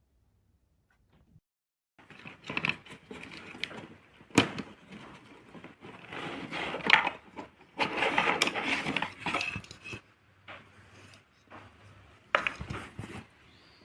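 Objects being handled: an irregular run of knocks, clicks and rustling clatter that starts about two seconds in, with a few sharp louder knocks.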